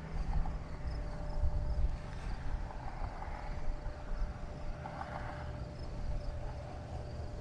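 Wind buffeting the microphone with an uneven low rumble, over faint, evenly repeated insect chirps.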